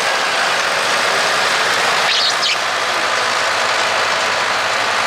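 Steady engine noise from machinery running, with a short higher-pitched sound about two seconds in.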